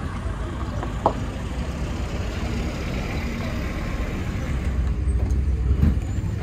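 Steady low rumble of a nearby motor vehicle engine running, growing louder in the second half. A sharp knock about a second in and a dull thud near the end come from plastic crates of strawberries being handled onto a platform scale.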